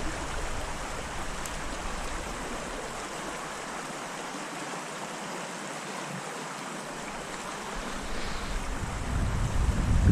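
Steady rush of a small stream's flowing water, with wind starting to buffet the microphone near the end.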